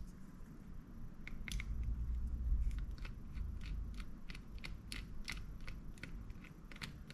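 Flathead screwdriver turning out a small cover screw on a Shimano Cardiff 401A baitcasting reel: a run of small crisp clicks and creaks, about two or three a second, over low handling rumble.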